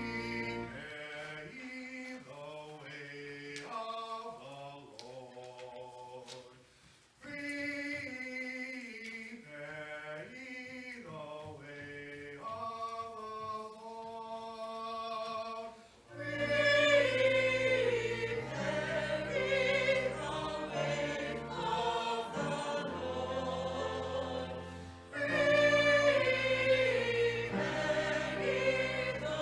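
A choir singing, lighter at first. About halfway through it grows louder and fuller, with sustained low accompanying notes underneath.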